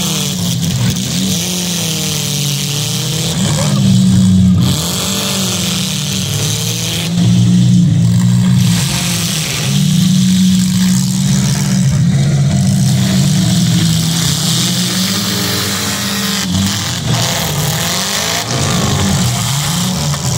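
Several demolition derby cars' engines running and revving at once, the pitch rising and falling as the drivers gun them. The sound swells louder a few times, around four seconds in and again in the middle.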